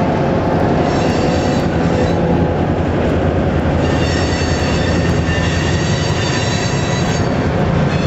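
Freight train's covered hopper cars rolling past over a steady rumble, with the wheels squealing in several high, held tones that come and go.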